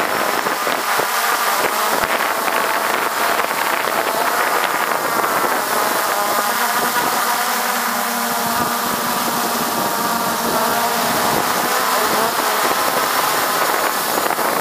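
MJX Bugs 3 quadcopter's brushless motors and propellers whirring steadily, heard from a camera mounted directly beneath the drone; the whir holds several tones that waver slightly as it flies.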